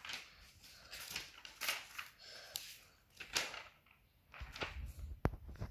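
Pen writing on paper: a series of short, faint scratchy strokes, with a low bump and a sharp tap near the end.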